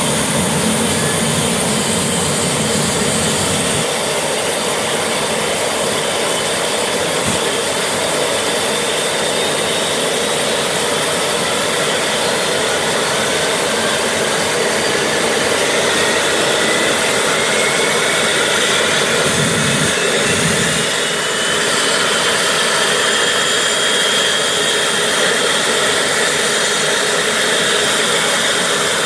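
Cessna Citation 560XL's Pratt & Whitney PW500-series turbofan spooling up during engine start: a whine that rises steadily in pitch over about ten seconds, then holds, over the steady rush of another Citation's jet engine running.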